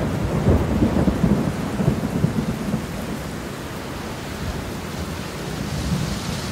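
Heavy rain falling and splashing on wet pavement: a dense, steady hiss with a low, crackling rumble underneath that is loudest in the first three seconds.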